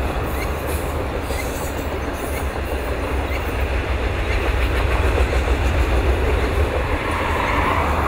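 CN Rail freight train of covered hopper grain cars rolling past, a steady low rumble with wheels rattling on the rails. The sound grows brighter and a little louder near the end.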